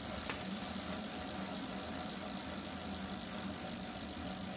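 Bicycle drivetrain and rear wheel spinning with the trainer's roller pulled off the tyre: a steady, fairly quiet whirr with one faint click about a third of a second in. With the roller out of contact the drivetrain is almost silent, and the trainer's clicking is gone.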